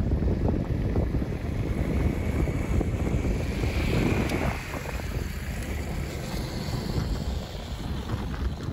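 Wind buffeting the microphone: a dense, unpitched rumble that starts suddenly and eases off near the end.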